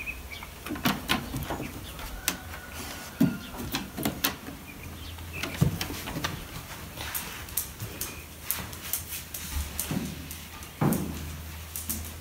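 Scattered, irregular clicks and light knocks: a Labrador's claws tapping on wooden decking and tile floor as it walks through a doorway, mixed with the knocks of a sliding door being handled.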